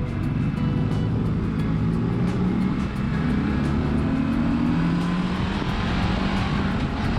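Ducati DesertX's 937 cc V-twin running under way, its pitch rising and falling with the throttle over a haze of wind and road noise.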